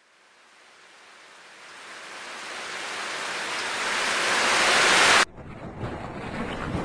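A rushing, surf-like swell of noise that builds steadily from silence over about five seconds to a loud peak, then cuts off abruptly, leaving quieter scuffing and small clicks.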